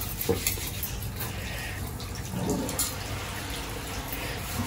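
Tap water running steadily into a steel kitchen sink, with a few light clicks and the rubbing of brass puja items being scrubbed by hand with cleaning powder.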